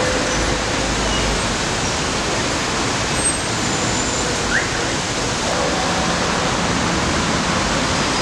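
Steady traffic noise from a busy city boulevard of cars, buses and taxis: an even wash of sound with a brief short squeak about halfway through.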